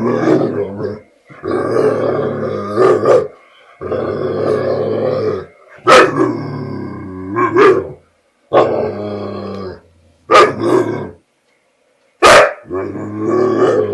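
American bulldog making long, drawn-out growling, grumbling vocalizations one after another, broken by a few short, sharp barks. These are the sounds of a dog scared to take his bottle back from another dog.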